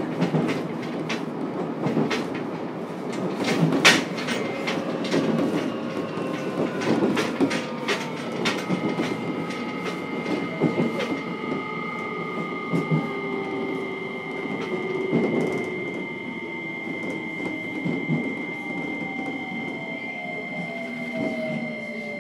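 Running sound inside a JR Kyushu 303 series electric motor car. Over the first half, wheels click sharply over rail joints above a steady rumble. Then the traction motor whine takes over, with steady high tones and lower tones sliding down in pitch as the train slows.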